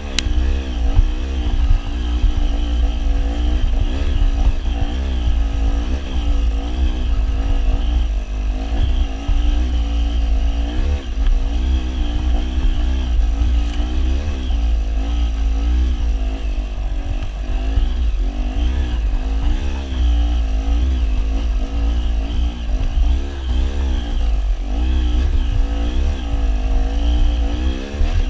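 Dirt bike engine running under load as the bike climbs a rough trail, its pitch rising and falling constantly with the throttle. Heard close up from the bike itself, over a heavy low rumble.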